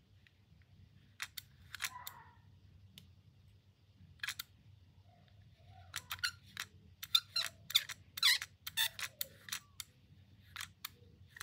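Insize 1103-200 metal digital caliper being handled, its sliding jaw pushed along the beam: scattered light clicks and brief scrapes, busiest from about six to nine and a half seconds in.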